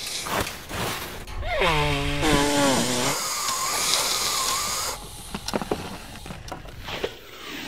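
A cartoon boy crying: a falling, wailing cry about one and a half seconds in, then a rasping, snuffly noise, and a few soft clicks near the end.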